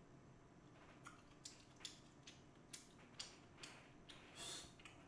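Faint eating sounds: soft, wet mouth clicks of someone chewing spicy food, about two a second, with a short hiss about four and a half seconds in.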